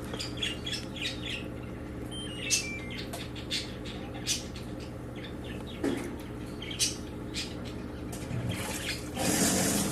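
LG top-load washing machine starting its wash cycle: water filling over a steady hum, with irregular clicks and short squeaks. This is the strange noise, which the technician traces to the clutch pawl not seating properly and rubbing on the upper transmission pinion.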